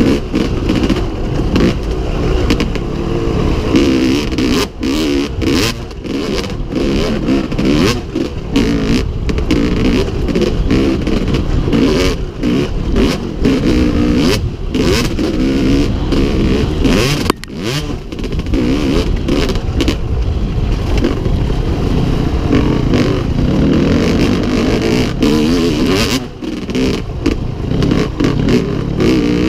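1998 Yamaha WR250Z's 250cc two-stroke enduro engine revving hard under way, its pitch rising and falling with the throttle and easing off briefly twice, over a constant clatter and scrape of the bike over a rough dirt track and wind on a helmet-mounted microphone.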